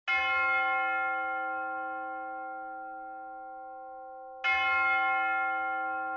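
A bell struck twice, about four seconds apart, each stroke ringing on and slowly fading.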